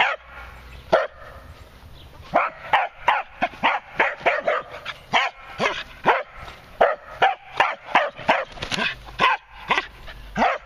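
Dog barking repeatedly while herding chickens: quick runs of sharp barks, about two to three a second, with a short break about a second in.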